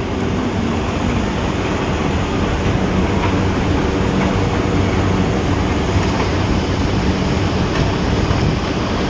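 Heavy machinery of the sugar factory's cane-unloading yard running steadily: a continuous rumble with a low hum and rattling.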